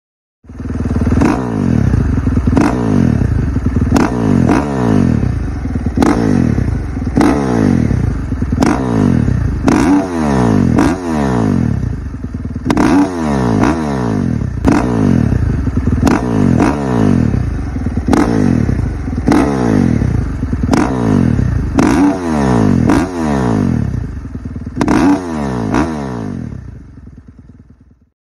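KTM 450 SX-F single-cylinder four-stroke dirt bike engine running through an FMF Powercore 4 slip-on muffler. It revs up and drops back over and over, the pitch falling after each sharp crack about once a second, then fades out near the end.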